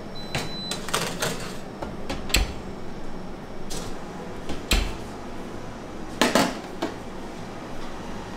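Scattered light clicks and knocks of objects being handled, with a louder double knock about six seconds in, over a steady background hum.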